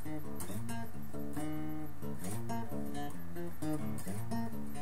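Acoustic guitar played solo, chords picked and strummed in a steady rhythm.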